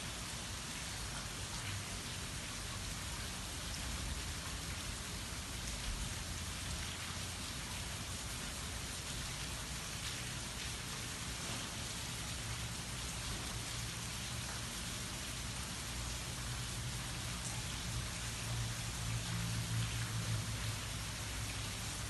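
Rain falling steadily, an even hiss of many drops. A low rumble builds underneath in the last few seconds.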